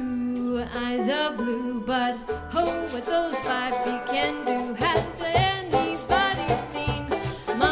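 Live bluegrass band playing: a voice singing the melody over plucked strings, with a steady clicking beat of about four strokes a second joining about five seconds in.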